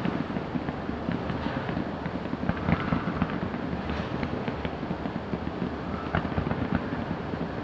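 Fireworks going off: a dense, continuous run of pops, bangs and crackles from bursting shells and comets, with a few louder reports about three seconds in.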